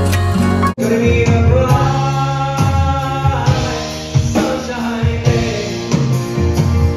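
Background music with plucked strings, cut off a little under a second in by a man singing live to acoustic guitar.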